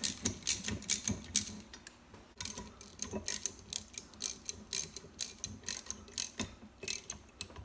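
Hand ratchet wrench clicking as it runs bolts down on a cast-iron intake and exhaust manifold assembly, in runs of rapid clicks with brief pauses between strokes. The bolts are only being run down until they touch, not torqued.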